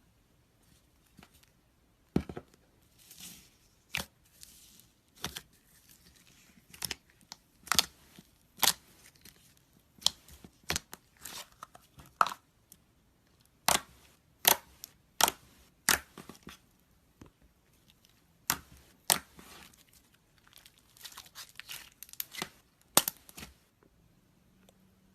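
Boba slime being squeezed and poked by hand, giving sharp pops and crackles at an irregular pace of roughly one a second, with faint crinkling between them.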